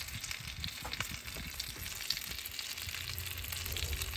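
Chicken thigh skewers and a pan of buttered potatoes sizzling and crackling over the charcoal fire of a kamado grill. A low rumble joins about three seconds in.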